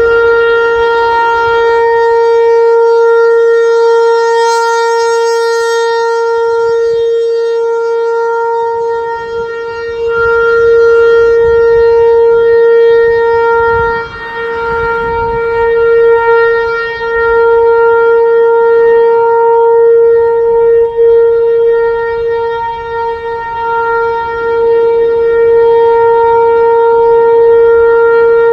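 Outdoor tornado warning siren sounding a steady tone, held at one pitch, with its loudness dipping briefly now and then.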